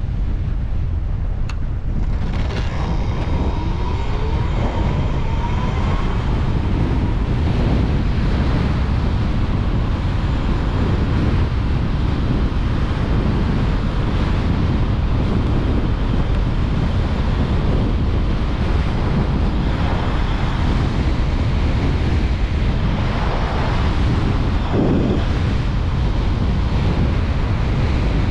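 Steady wind buffeting the microphone while riding an electric motorcycle along a road, drowning out the nearly silent hub of the electric drive. A faint whine glides in pitch a few seconds in.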